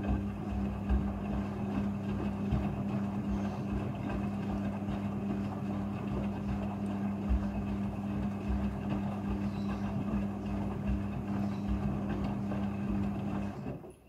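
Midea front-loading washing machine tumbling a wet blanket in its rinse cycle: the drum motor gives a steady hum over the slosh and swish of water and fabric, then stops abruptly shortly before the end.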